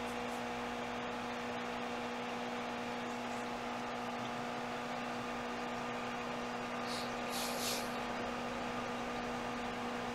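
Steady electrical hum over even background hiss, with two short soft hissy sounds about seven seconds in.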